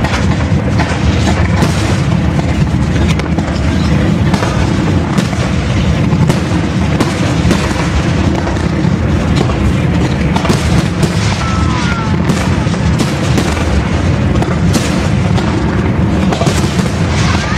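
Aerial fireworks going off in quick succession: a dense, continuous rumble of bangs and sharp reports from shells bursting overhead.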